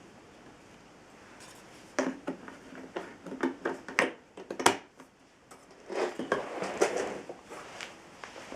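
Irregular clicks, knocks and short scraping rattles of hard objects being handled, starting about two seconds in, with no motor running.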